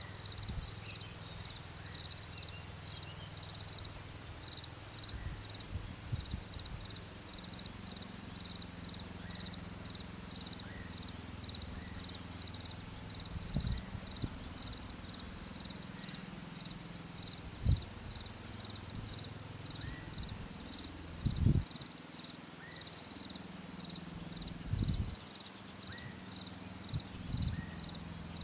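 Steady chorus of insects trilling in a rapid, even pulse, with occasional low thumps underneath.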